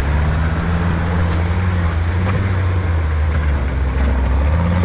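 A rock-crawling off-road rig's engine running at a steady low drone, its pitch rising a little near the end as it is given more throttle.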